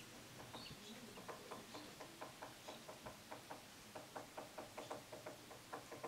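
Woodpecker tapping on wood: a steady train of light knocks, about four or five a second, starting about half a second in. The pace is slow, the separate strokes of a woodpecker pecking for food rather than the fast roll of drumming.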